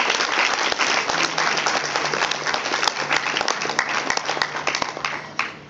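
Audience applauding after a song: many hands clapping, thinning out and dying away near the end.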